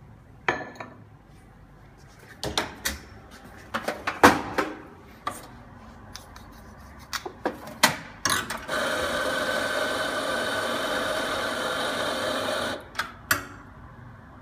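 Knocks and clatter of cups and barista equipment being handled. About nine seconds in, an espresso grinder runs steadily for about four seconds, grinding a dose into a portafilter, then cuts off, followed by a couple of taps.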